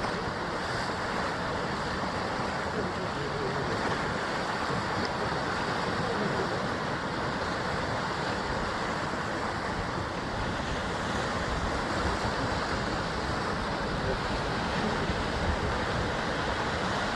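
Sea surf washing against a rocky basalt shoreline: a steady, even wash of waves with no single crash standing out.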